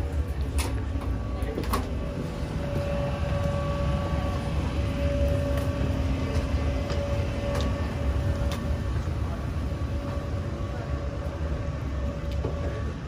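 Tram running on its rails, heard from inside the car: a steady low rumble of wheels and track with a held whining tone over it and a few short clicks.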